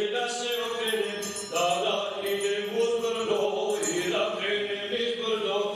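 Slow, chant-like melody of long held notes that slide from one to the next, with a lower line held beneath.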